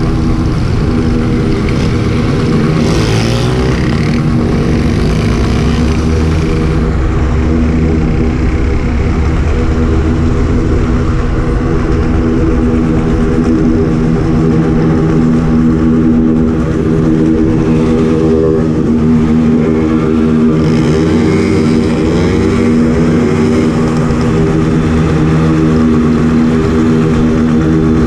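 Motorcycle engine running steadily under way at moderate speed, with other motorcycles in the group revving up and down, their pitch rising and falling now and then.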